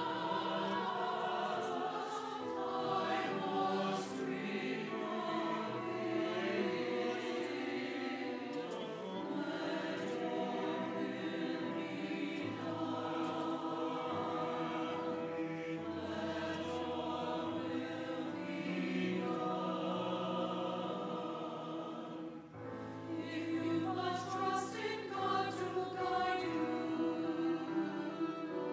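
Church choir singing a slow piece accompanied by cello and keyboard, with a brief lull about three-quarters of the way through before the music picks up again.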